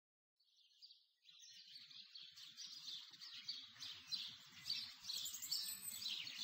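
Birds chirping, many short high chirps fading in from silence and growing louder.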